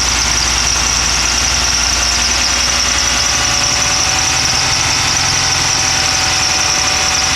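Car engine with a vacuum leak on bank 1, running steadily, held a little above idle, with a steady high-pitched tone over it.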